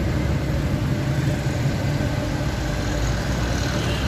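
Steady low hum of a motor vehicle engine idling.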